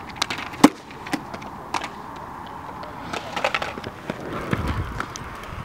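Inline skates on a concrete skatepark: scattered sharp clacks of hard skate parts knocking on the concrete, the loudest about half a second in and a quick cluster past the middle, then a short low rumble of wheels rolling over concrete near the end.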